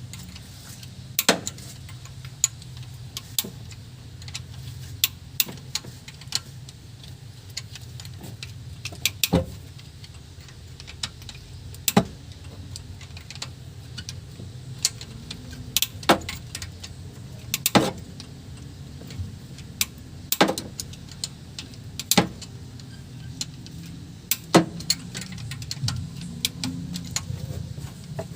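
Metal hand tools clinking and tapping sharply at irregular intervals, about one clink every second or two, while the exhaust manifold bolts are undone, over a steady low hum.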